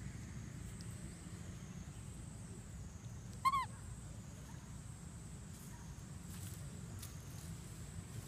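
A macaque gives one short, high, arched coo about three and a half seconds in, over a steady low outdoor background rumble.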